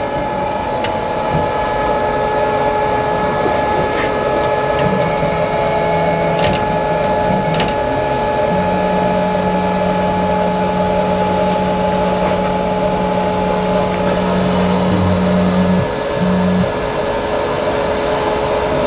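CNC router running with a steady high-pitched hum. A lower motor drone comes in about five seconds in, holds steady, and stops a couple of seconds before the end, as the head is jogged into place to set the machine's zero point.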